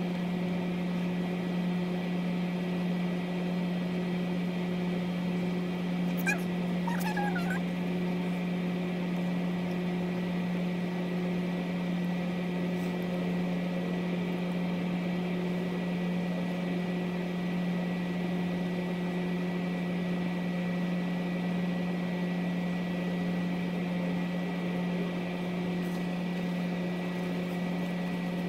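Window air conditioner running with a steady, even hum. A brief high warbling chirp sounds about six to seven seconds in.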